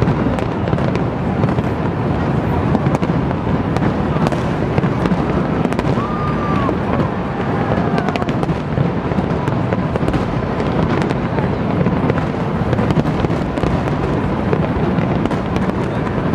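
Aerial fireworks display: shells bursting in a dense, unbroken barrage, with many sharp cracks and crackles over a steady rumble.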